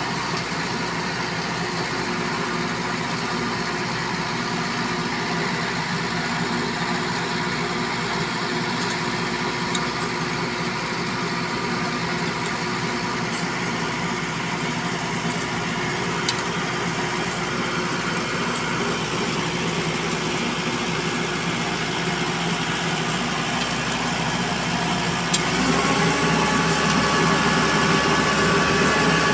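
Engine of a truck-mounted crane running steadily to power a hydraulic earth auger. About 26 seconds in it speeds up and gets louder, with a few faint clicks over the engine.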